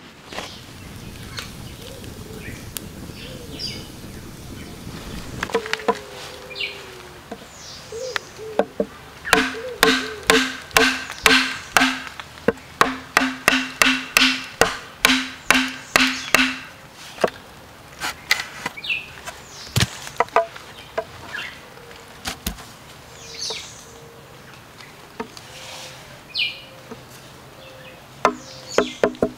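A large knife chopping bamboo in runs of sharp strikes, about three a second. Each strike rings with the same clear note. Birds chirp between the runs.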